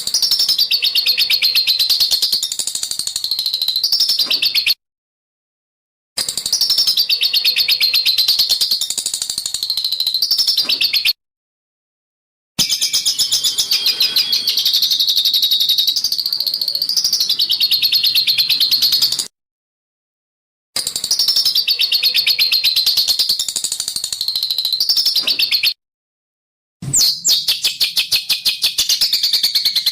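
Masteran bird-song tutor recording: a songbird gives a harsh, very rapid rattling chatter (besetan kasar) of closely spaced notes. It comes in several bursts of about four to seven seconds, cut apart by short stretches of dead silence. The last burst, near the end, has the notes a little more widely spaced.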